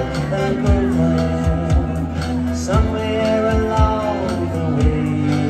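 Live music from an acoustic and an electric guitar over a steady low beat and bass line, with a man singing held, bending notes.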